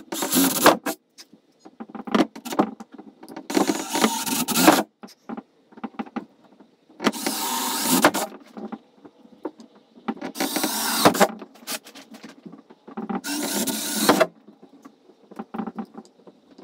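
Cordless drill with a 3/16-inch bit drilling holes through a car's sheet-metal hood: five runs of about a second each, the drill spinning up and cutting through, with clicks and knocks between them as the bit is moved to the next hole.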